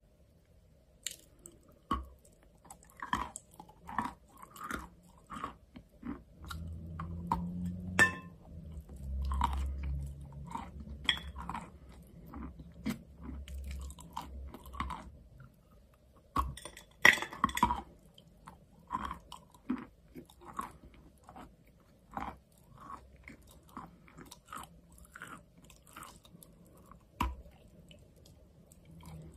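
Close-miked crunching bites and chewing of soft wet chalk, the crunches coming irregularly, the loudest about eight seconds in and again about seventeen seconds in.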